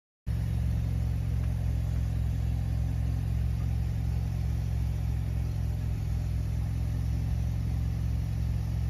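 A 2018–2022 Toyota Camry idling steadily, a low, even engine hum that cuts in abruptly a moment after the start.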